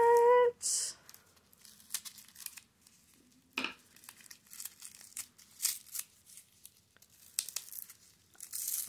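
Tissue paper wrapping crinkled and torn open by hand, in scattered rustles and crackles that grow busier and louder near the end.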